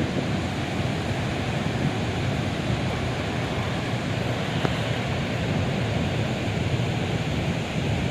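Steady rush of water discharging through a dam's relief valve.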